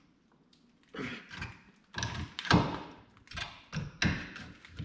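Hand tools knocking on a truck part in a wrench job: a string of irregular thunks and knocks, the loudest about two and a half seconds in.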